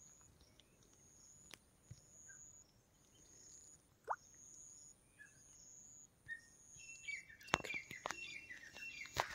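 Faint birds calling outdoors: short high chirps repeating, one rising call about four seconds in, and a run of quick falling chirps in the last couple of seconds. A few sharp clicks come near the end.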